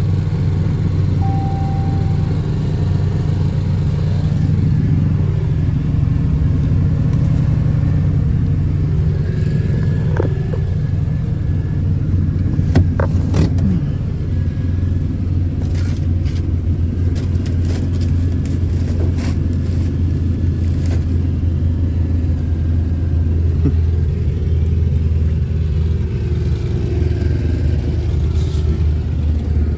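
An engine running steadily with a constant low drone. Several sharp clicks or knocks come between about 12 and 21 seconds in.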